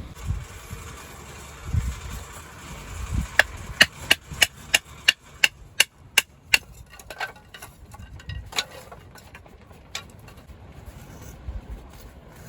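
A run of about ten sharp knocks, roughly three a second, with a few scattered knocks and dull thumps around them.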